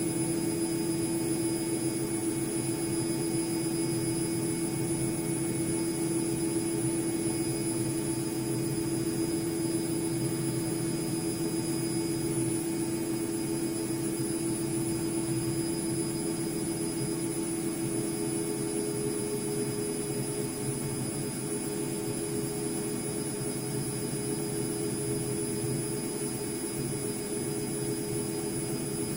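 ATLANT washing machine running with a steady motor whine over a whoosh of noise; its pitch rises slightly about two-thirds of the way through.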